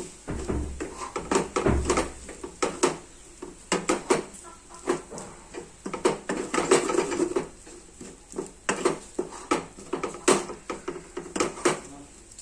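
Wooden spatula stirring a dry, crumbly fish and coconut roast in a stainless steel pan: irregular scraping and clacks against the metal, with a couple of dull thumps in the first two seconds.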